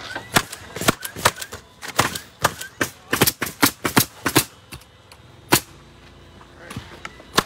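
Roofing nailer driving nails through asphalt shingles: a quick, irregular run of sharp shots, well over a dozen in about four seconds, then a single shot about a second later.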